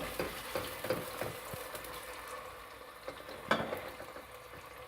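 Chopped onions sizzling as they fry in oil in a cooking pot, with scattered stirring clicks and one sharper knock about three and a half seconds in.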